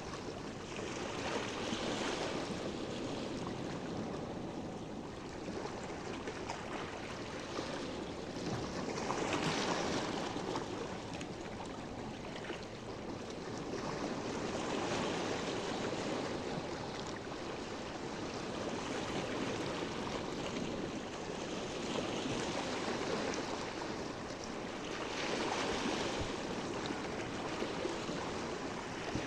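Sea waves washing in: a continuous rush of surf that swells and eases every several seconds.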